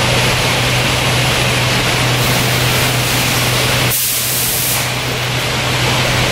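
Steady noise of packaging-line machinery with a strong low hum. About four seconds in, a short sharp hiss like a compressed-air release lasts under a second.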